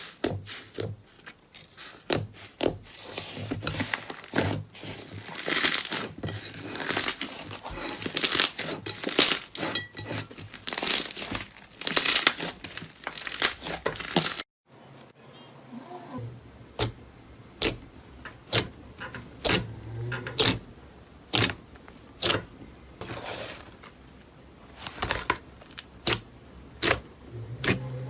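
Slime being squeezed and pressed by hand, giving runs of sharp crackles and pops. After a brief gap about halfway, the pops come about once a second.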